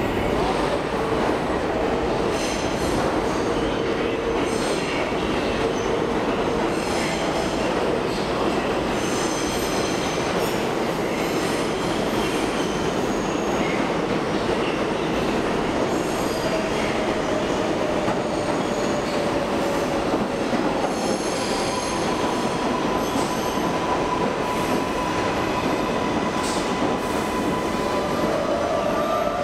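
New York City subway train running through the station, with a steady rumble of wheels on rail and its steel wheels squealing on the track. The squeal comes as several held high tones, one sliding down in pitch about halfway through.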